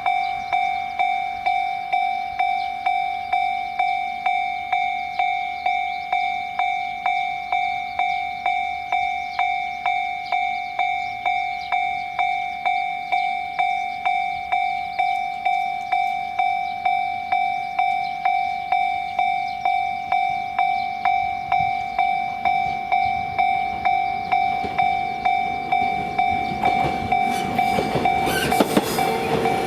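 Japanese level crossing warning bell ringing its steady "kan-kan" at about two strikes a second, one clear ringing tone. Near the end, the rising noise of an approaching train builds up under it.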